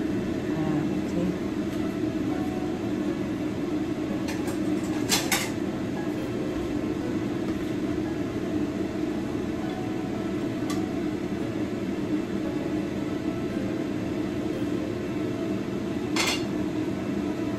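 Utensils and dishes clinking a few times while food is handled in the kitchen. The loudest is a quick pair about five seconds in, and another comes near the end. Under the clinks runs a steady mechanical hum.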